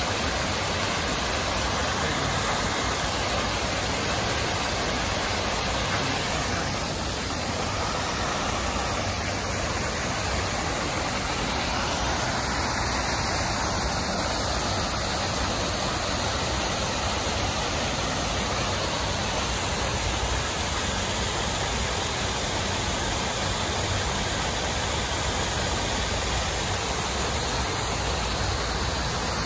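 Water falling over a rock waterfall feature and splashing into a pond, with fountain jets spraying: a steady rushing hiss.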